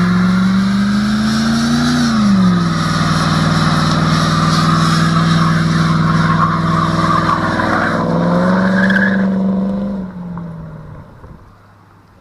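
A car engine running loud. It revs up and drops back about two seconds in, holds steady, rises again near the end, then fades away.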